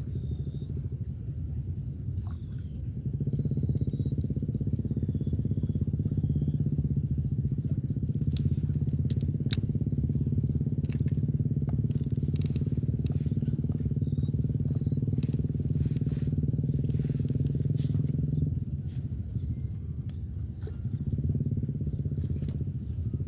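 A motor engine running steadily, getting louder about three seconds in and easing back near the end. Faint bird chirps in the first few seconds.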